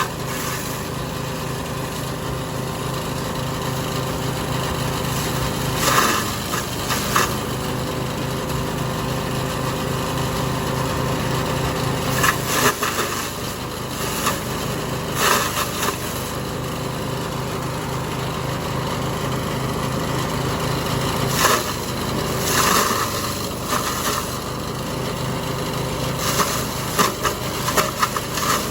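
Engine-driven forage chopper running steadily while shredding grass and corn stalks, with loud bursts of chopping each time material is fed into the blades, about seven times.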